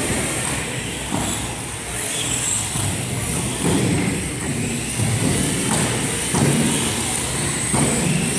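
Small radio-controlled off-road race cars running around the track: a steady high motor whine with rough, uneven swells of tyre and chassis noise as the cars pass.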